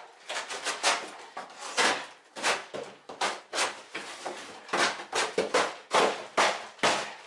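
Packaging on a newly delivered fireplace stove being handled and pulled open: a quick, irregular series of sharp knocks, scrapes and crackles, one to three a second.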